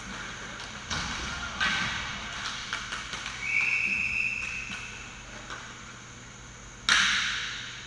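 Inline hockey play: sticks and puck knocking. A referee's whistle sounds about three and a half seconds in and lasts a little over a second. One loud sharp bang, ringing off, comes near the end.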